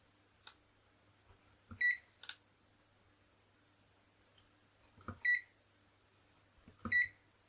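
Digital multimeter in continuity mode giving three short high-pitched beeps, each just after a faint click of the test probes touching: the beeper signalling a closed connection between the probed points.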